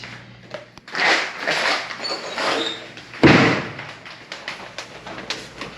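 A single heavy bang about three seconds in, the loudest sound, among fainter knocks and rustling.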